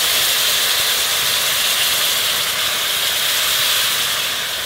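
Broth poured from a canning jar into a hot stainless skillet of butter-and-flour roux, sizzling steadily; the hiss eases a little near the end.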